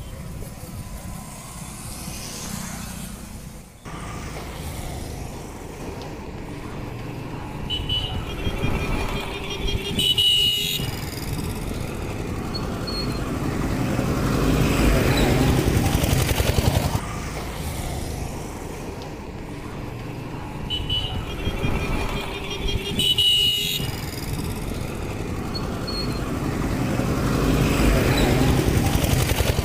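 Road traffic going past: vehicles swelling by, with a few short horn toots. The same stretch of sound seems to repeat about every thirteen seconds.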